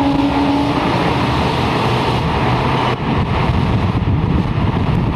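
A short horn blast from an approaching electric locomotive, a steady single pitch that stops under a second in. Heavy wind noise on the microphone, with a low rumble, runs underneath.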